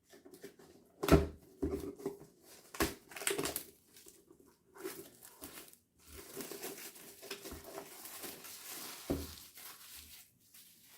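Plastic shrink wrap on a cardboard trading-card box being slit with the edge of a card and torn away, crinkling. Several sharp knocks and handling taps in the first few seconds, a steady rustling tear for about three seconds past the middle, then a thump.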